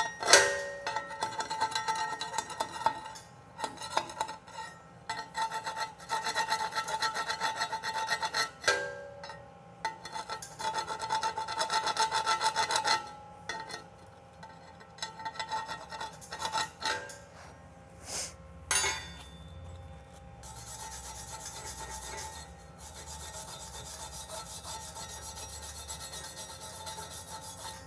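Hand wire brush scrubbing slag off a steel weld bead between fill passes, in quick back-and-forth strokes with short pauses, over a faint steady metallic ring. A sharp knock comes right at the start, and from about two-thirds of the way in the scrubbing turns steadier and more even.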